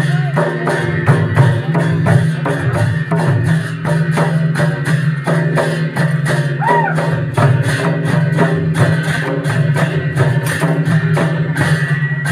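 Gayan-Bayan music: khol (mridanga) drums and clashing tal cymbals playing a fast, even beat of about four strokes a second for the dance.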